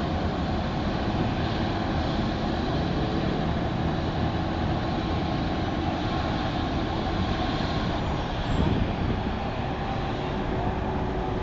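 Helicopter running: a steady loud rotor and engine noise with a low rumble and faint steady tones.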